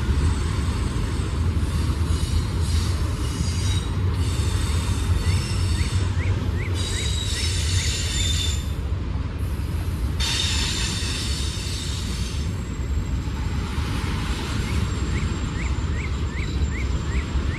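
Freight train's autorack cars rolling past, slowly picking up speed: a steady low rumble of wheels on rail, with high-pitched wheel squeal coming and going.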